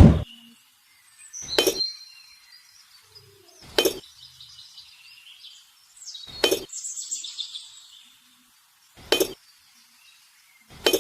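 Sharp clinks of hard objects, six of them spaced about two to three seconds apart, each with a short ring, with faint high tinkling between them.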